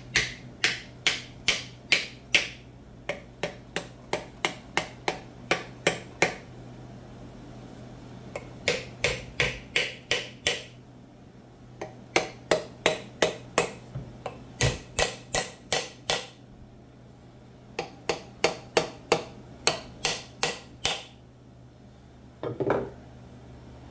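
Small hammer tapping a wooden wedge into the kerf of an axe handle hung in a Plumb rafting axe head: runs of sharp taps, about three to four a second, with short pauses between the runs, as the wedge goes in slowly and straight. One duller knock near the end.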